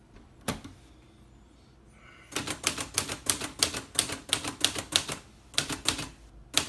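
Olivetti Lettera 32 portable typewriter typing: one keystroke about half a second in, then after a short pause a fast, even run of type bars striking the paper, about four a second, typing the numbers and symbols.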